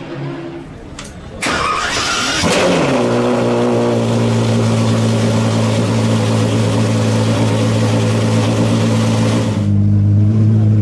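Apollo Project EVO's V12 engine starts up with a sudden burst of revs about a second and a half in, which falls away into a steady idle. Near the end the idle turns deeper and smoother.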